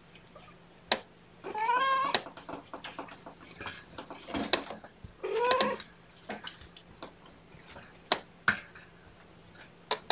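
A cat meowing twice, about four seconds apart, each call rising in pitch, with a scatter of light taps and knocks in between.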